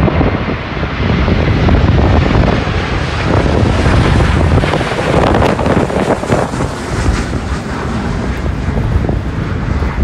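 Storm-force wind gusts buffeting the microphone, over the jet engines of an Embraer E-Jet regional airliner passing low overhead on final approach, loudest about four to six seconds in.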